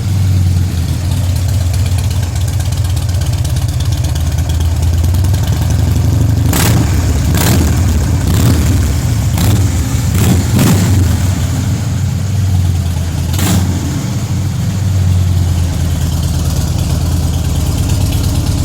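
Harley-Davidson V-twin running through Vance & Hines slash-cut slip-on mufflers, idling steadily and loud, with several quick throttle blips in the middle before settling back to idle.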